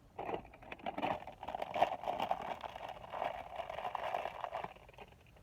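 Crinkling, rustling packaging being handled, with many small sharp crackles, stopping about three-quarters of the way through.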